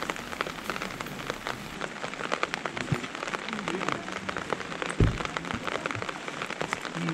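Steady rain falling, a dense patter of small drop ticks, with one dull low thump about five seconds in.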